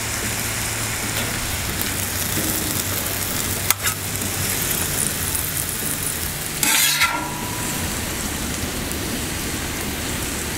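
Steak fajita meat, peppers and onions sizzling steadily on the steel top of a Camp Chef FTG600 flat-top griddle, with a metal spatula scraping and tapping on the griddle as the filling is scooped onto a tortilla. A sharp click comes about four seconds in, and a louder scrape comes near seven seconds.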